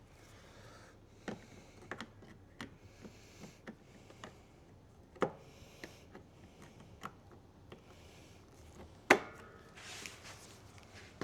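Scattered clicks and knocks of hand tools and parts as a replacement wheel and its fastener are worked onto a battery lawn mower, with one sharp knock about nine seconds in followed by a brief scrape.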